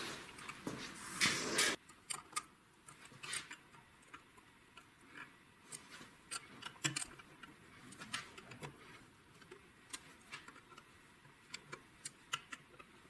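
Small metal clicks and ticks at irregular intervals from a wrench on the oil pump's retaining nuts as they are torqued to 25 newton metres and their lock tabs set. The first couple of seconds hold a louder stretch of tool-handling noise.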